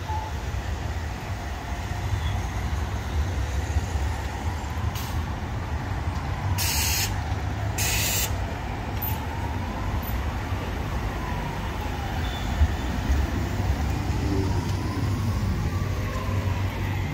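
City street traffic rumble beside tram tracks, with two short hisses of released air from a bus's air brakes about seven and eight seconds in. A faint whine rises and falls slowly several times.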